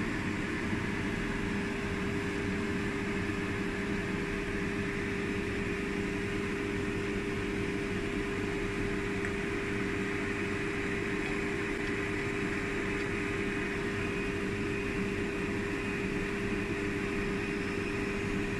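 Steady hum of a running fan motor, with a constant mid-pitched tone.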